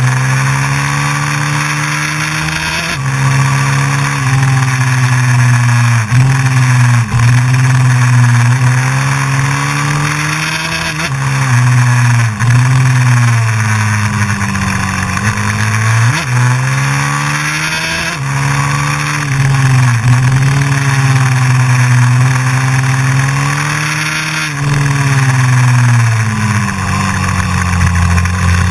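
Honda CRF450X's single-cylinder four-stroke engine under hard riding. The engine note climbs and falls again and again as the throttle is worked, and drops suddenly in pitch every few seconds at the gear changes.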